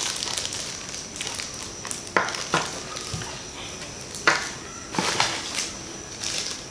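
Plastic accessory bags crinkling and rustling as they are handled, with several sharp clicks from the small plastic parts and the cardboard box being moved.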